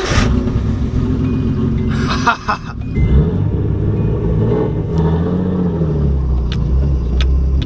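Turbocharged Nissan 240SX engine running loudly, its revs rising and falling a few times, with a brief higher rasping burst about two seconds in.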